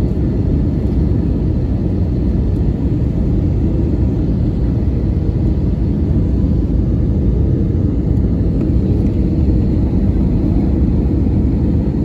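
Steady low rumble of jet engines and rushing air heard from inside an Airbus A320 cabin as the airliner descends on approach, with a faint steady whine above it.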